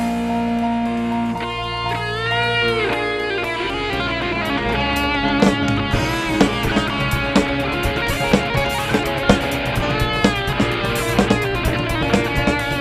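Live band music: an electric guitar-led band with a lead note bent up and back down about two seconds in, then drum kit hits coming in from about five seconds.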